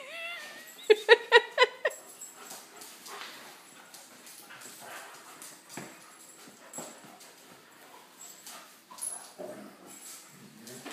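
A dog gives a short whine, then a quick string of about six sharp play barks about a second in. Quieter scuffling follows as the play-wrestling goes on.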